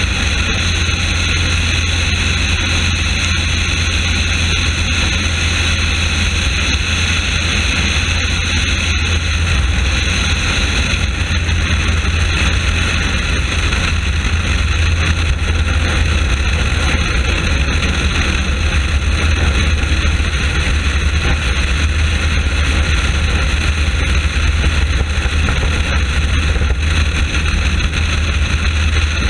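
Rotec nine-cylinder radial aero engine of a Nieuport 28 replica running steadily in cruise flight, heard from outside on the fuselage with heavy wind rush over the microphone. Level and pitch hold constant throughout, with no sign of a miss or power loss.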